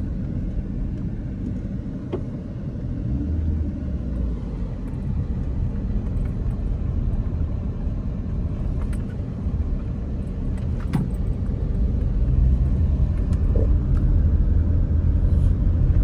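Car interior road noise while driving on an unpaved dirt road: a steady low rumble of engine and tyres, with a few faint ticks and rattles. The rumble grows a little louder over the last few seconds.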